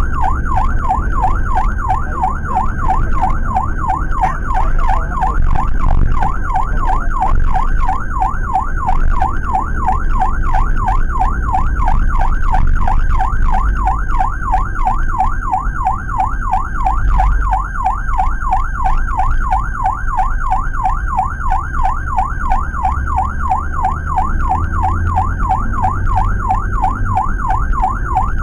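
Ambulance siren on a fast yelp, its pitch sweeping rapidly up and down without a break, heard from inside the Suzuki APV ambulance's cabin over engine and road rumble.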